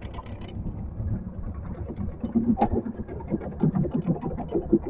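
Boat motor running steadily at low speed, with irregular water sounds and a few small knocks over it.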